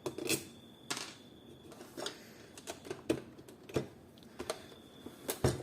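Irregular clicks and knocks of hands working on a projector's plastic housing during disassembly: about a dozen sharp taps spread unevenly, the loudest at the start and near the end.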